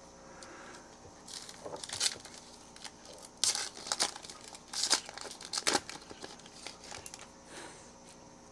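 Foil wrapper of a trading card pack being torn open and crinkled, in several short bursts over a few seconds, then fainter handling.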